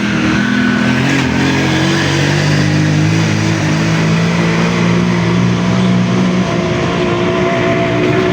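A car engine running steadily close by, its pitch shifting about six and a half seconds in.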